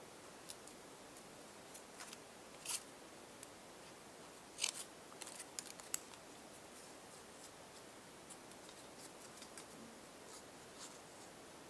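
Faint paper-handling sounds as a thin strip of patterned paper is folded and creased into a triangle and cut with small scissors: scattered light crinkles, with a few sharper snips between about two and six seconds in.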